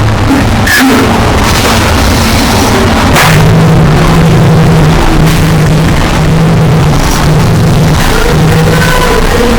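Harsh noise music: a loud, dense wall of distorted noise. A low hum comes in about three seconds in and cuts in and out, with a couple of sharp crackling hits.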